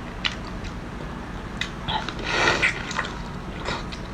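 Close-up eating sounds: a person chewing, with scattered wet mouth clicks and a short slurp about two and a half seconds in.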